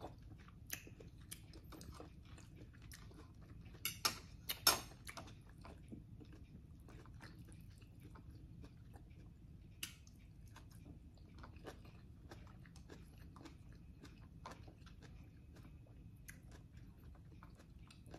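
A person chewing and biting into fried pork chop close to the microphone, quiet, with scattered small clicks and a few louder crunches or taps about four to five seconds in.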